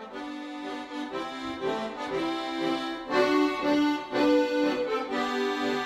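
Accordion playing the instrumental introduction to a German sea shanty, a melody of held notes over a steady lower part.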